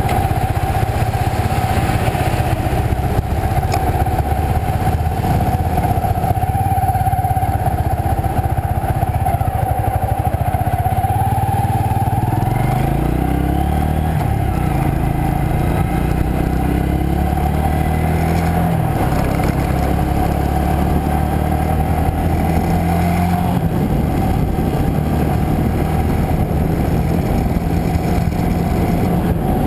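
Motorcycle engine running under the rider, climbing in pitch as it accelerates about twelve seconds in, then stepping in pitch a couple of times further on as it changes gear. A steady thin whine runs underneath.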